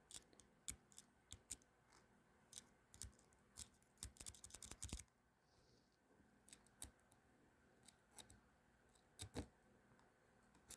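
Irregular small clicks and taps of the metal parts of a ratcheting screwdriver's ratchet mechanism being handled and fitted. They come thick for the first five seconds, then only now and then.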